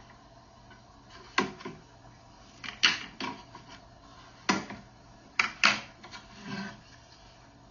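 A series of about seven sharp clicks and knocks at irregular intervals, from hard workpieces or a jig being handled and set down on the bench.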